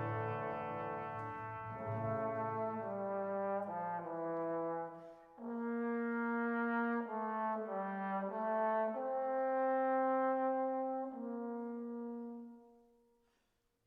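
Background music: a slow melody of long held notes with a brass sound like horn or trombone, with a short break about five seconds in, fading away near the end.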